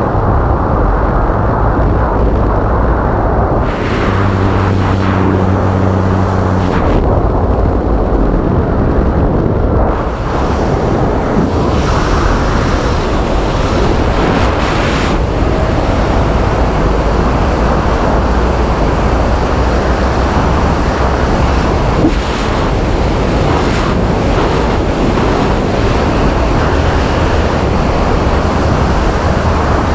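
Strong freefall wind rushing over a body-mounted action camera's microphone during a tandem skydive, a loud, steady noise. For a few seconds near the start a low, steady drone from the aircraft's engine sounds through it, just after the exit from the plane.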